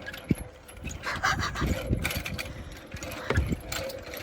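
Irregular knocks, taps and rustling of things being handled, under a faint steady hum.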